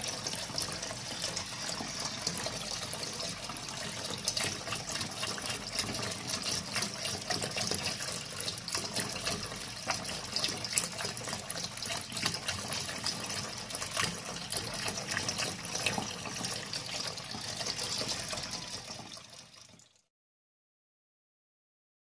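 Tap water running in a thin stream from a faucet into a metal sink, a steady splashing that fades out near the end.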